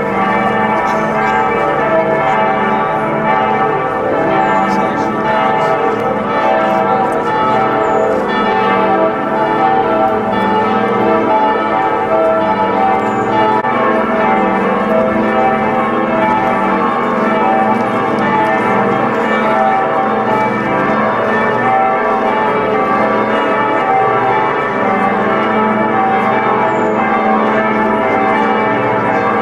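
The full set of Worms Cathedral's church bells ringing together in one peal, many bells swinging at once so their strokes overlap into a dense, continuous clangour.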